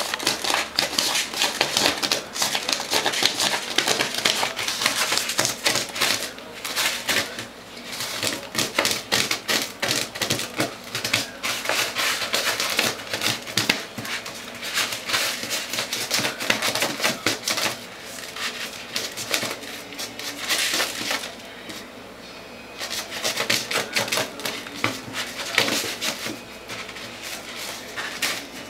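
Cat pawing and digging in granular litter in a plastic toilet-training tray on a toilet seat: rapid rattling, scratching clicks in bursts of several seconds, with short pauses between them.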